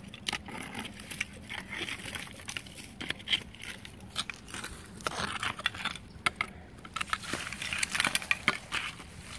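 Hand digging tool scraping and raking through dirt and dry leaves, with irregular crackles and clicks that grow thicker in the second half.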